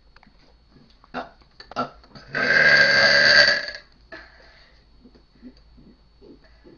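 A loud, drawn-out burp lasting about a second and a half, starting a little over two seconds in, after a few short faint clicks.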